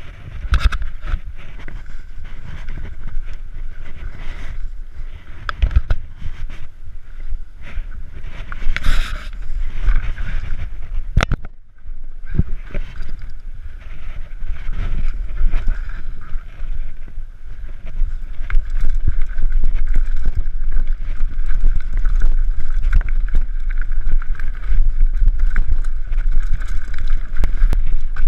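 Mountain bike clattering and rattling over a rocky trail, with wind rumbling on the camera microphone; a brief lull about eleven seconds in, louder and busier in the second half.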